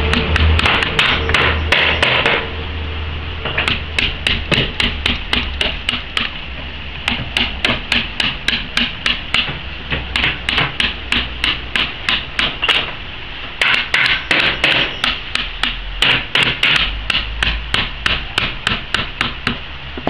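Wood-carving chisel struck with a small hammer as it cuts into a carved wooden piece: light, rapid taps about three a second, in runs with a few short pauses.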